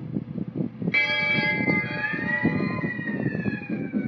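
Toy train running on its track with steady rattling and clicking from the wheels. About a second in, its horn sounds a chord of several tones that slowly drops in pitch.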